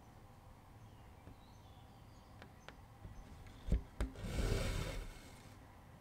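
Two light knocks about a third of a second apart, then about a second of rustling: hands handling a wooden embroidery hoop and the stitched fabric.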